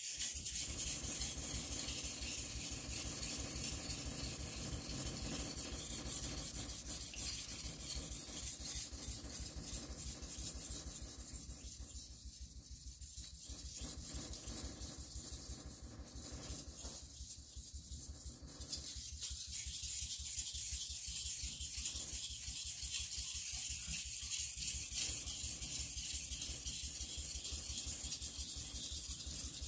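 Steel kitchen knife being sharpened on a whetstone: steady, rapid back-and-forth grinding strokes of the blade across the stone, easing off briefly twice.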